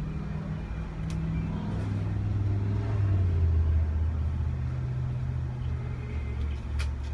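Car engine idling, heard from inside the cabin: a low steady hum that grows louder and drops a little in pitch a few seconds in, with a couple of faint clicks.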